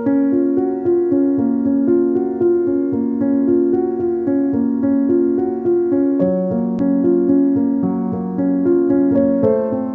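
Background piano music playing a melody of held notes.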